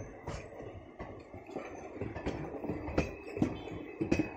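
Passenger coach wheels clattering over rail joints as the train rolls past close by, sharp knocks coming a few times a second over a steady rumble, with a thin high tone joining near the end.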